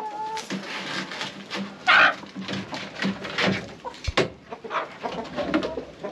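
Chickens clucking and calling around the feet, with one loud call about two seconds in. A sharp plastic knock just after four seconds as the red lid comes off the blue plastic water barrel.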